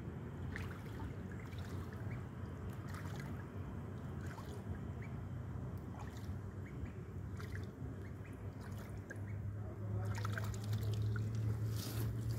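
White domestic duckling bathing in a shallow muddy puddle: scattered splashes and water sloshing, more frequent near the end. A steady low hum lies underneath and grows louder in the last couple of seconds.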